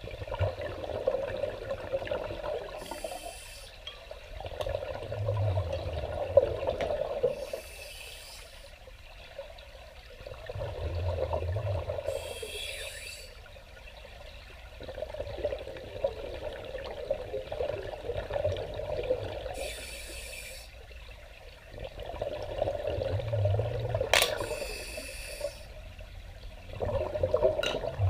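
Scuba breathing heard underwater: a regulator's hiss and rushing exhaled bubbles, one breath roughly every five seconds.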